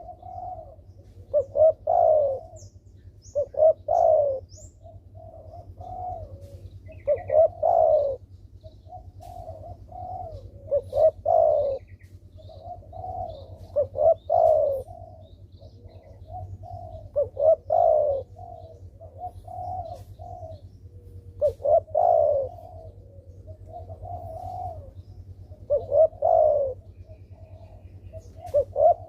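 Spotted dove (derkuku) cooing its song over and over: a phrase of a few short notes ending in a longer coo, repeated about every three and a half to four seconds, with softer coos in between. Faint chirps of a small bird show early on.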